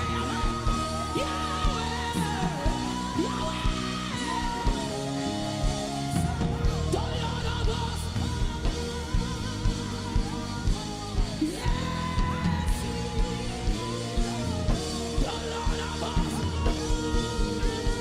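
Worship music from a live band, with a steady drum beat and sustained instrument chords under wavering singing voices.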